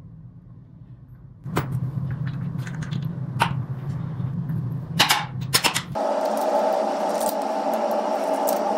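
Sharp metallic clicks and knocks of hand tools on a scooter's front axle hardware as the wheel is refitted, over a low steady hum. About six seconds in, the sound changes abruptly to a steady hiss with a mid-pitched hum and many fine rattling clicks.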